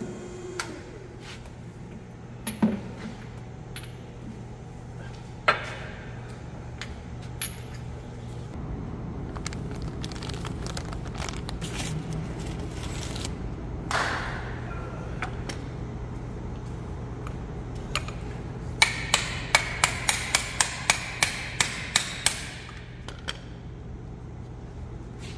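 Metal tools clinking and scraping on metal, then a run of about a dozen quick hammer blows on metal, each ringing briefly, near the end. A steady low hum runs underneath.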